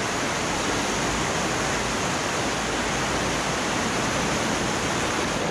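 Fast-flowing river rapids: a steady rush of whitewater.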